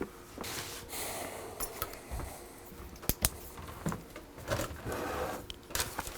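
Pen scratching on paper in short strokes as wiring notes are written down, with one sharp click about three seconds in.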